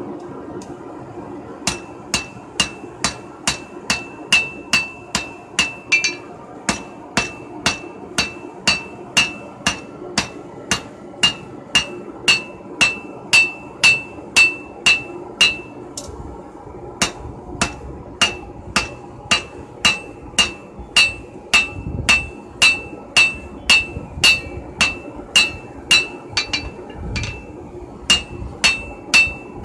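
Blacksmith's hand hammer striking red-hot steel held in tongs on an anvil, steady rhythmic blows at about two to three a second, each with a short metallic ring. The blows stop briefly a few times.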